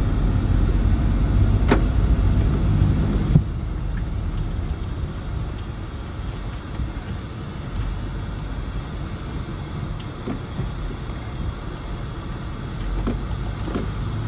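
Ford Transit van driving slowly, heard from inside the cab: a steady low engine and road rumble, with a couple of sharp knocks in the first few seconds, after which the rumble drops to a quieter level.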